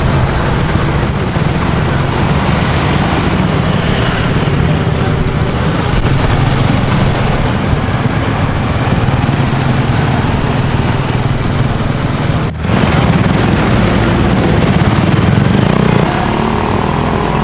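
Steady engine and road noise of a moving vehicle, with a low engine hum, broken by a brief dip about twelve and a half seconds in.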